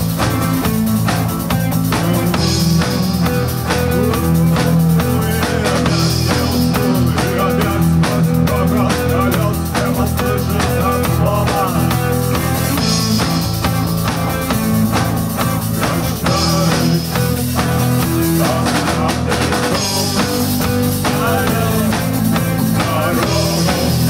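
Rock band playing live at rehearsal: a steady drum-kit beat with bass and guitar.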